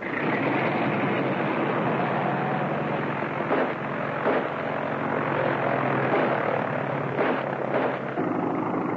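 Propeller engine of a biplane droning steadily, under the heavy hiss of an old film soundtrack, with a few short louder bursts along the way.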